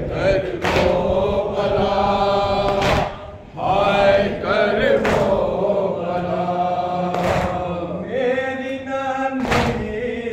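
Men chanting a Shia noha lament in unison, led over a microphone. The congregation strikes their chests together about every two seconds in matam, five beats in all.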